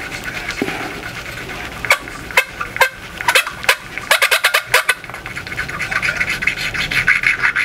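A titanium valve in a Yamaha YZF-R1 cylinder head being twisted back and forth against its seat with a hand lapping stick, dry with no compound: metal rubbing on metal. Sharp clicks come in a quick run about halfway through, then a fast, rhythmic rasping rub.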